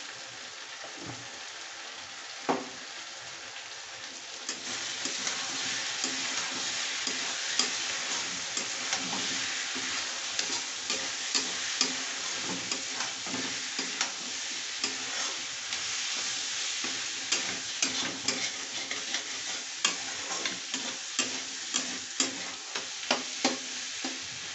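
Potatoes, peas and onions sizzling in a metal kadhai while a flat metal spatula stirs them, with many sharp clicks and knocks of the spatula against the pan. The sizzling and clatter get louder about four seconds in, as the stirring gets going.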